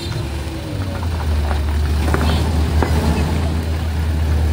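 Minivan engine idling close by, a steady low hum, as the car starts to pull away; a few faint clicks sound about two to three seconds in.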